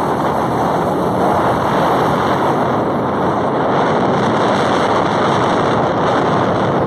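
Steady rush of wind buffeting the microphone on a moving motorcycle, with engine and road noise mixed underneath.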